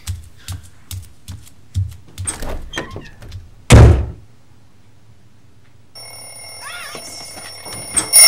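Quick soft thumps of running footsteps, then a heavy thunk about four seconds in. From about six seconds a mechanical twin-bell alarm clock rings, growing loud at the end.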